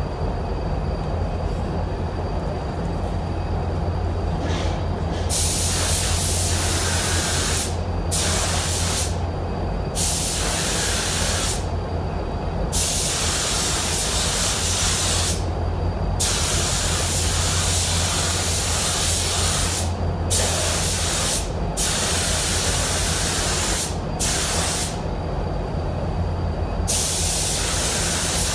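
Compressed-air paint spray gun hissing in repeated bursts as the trigger is pulled and released on each pass. The spraying starts about five seconds in and is heard over a steady low hum.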